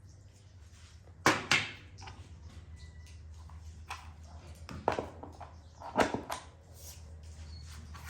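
A handful of short sharp clicks and knocks, about five, over a faint steady low hum. Two come about a second in and two about six seconds in.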